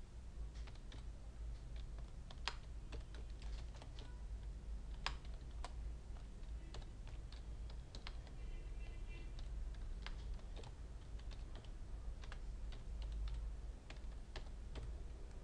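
Typing on a computer keyboard: irregular, quick keystrokes clicking, over a low steady hum.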